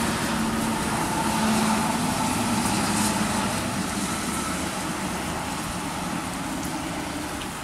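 High-deck intercity coach passing at speed on a wet toll road: engine drone with a steady tone and tyre rush, fading steadily as the coach drives away.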